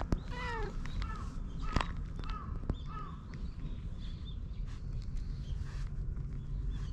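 Orange tabby cat meowing while being stroked along its back and tail base: one longer, falling meow near the start, then four short meows over the next two and a half seconds.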